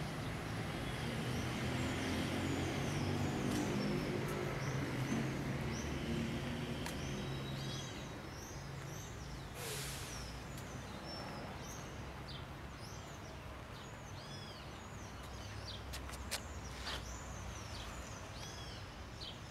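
Birds chirping repeatedly over the low rumble of road traffic, the rumble louder in the first half and fading after. A short hiss comes about ten seconds in, and two sharp clicks near the end.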